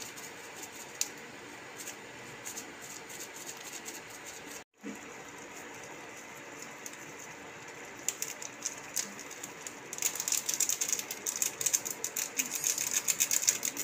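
Small foil-and-plastic masala sachet crinkling and being torn and emptied over a pan: light scattered crinkles at first, then a dense run of rapid crackling over the last few seconds, over a faint steady hum.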